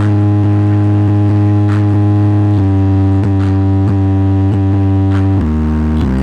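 Loud bass-heavy music played through a large sound system: long held bass notes that shift pitch a few times, with sharp percussive hits over them.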